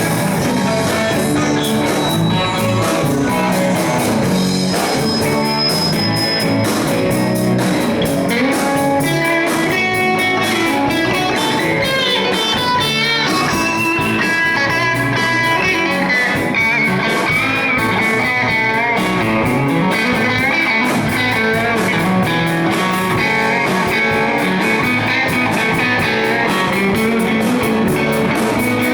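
Guitar music played live, a lead line with bent, wavering notes over steady accompaniment.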